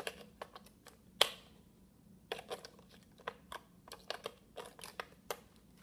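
AA batteries being pushed and snapped into a plastic toy blaster's battery compartment: a string of irregular sharp plastic clicks and knocks, the loudest just after a second in.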